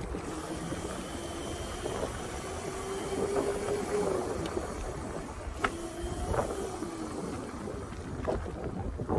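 Electric pit bike with an ETM motor kit being ridden: the motor's thin whine rises and falls in pitch twice as the throttle is worked, under wind buffeting the microphone.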